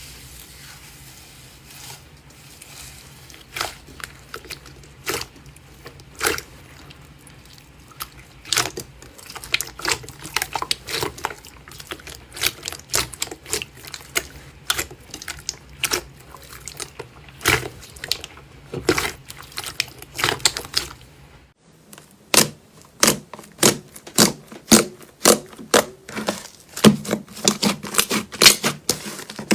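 Slime being squeezed and pressed by hand, making crisp pops and crackles: scattered at first, then more frequent. After a cut near the end comes a quick, even run of pops, two or three a second.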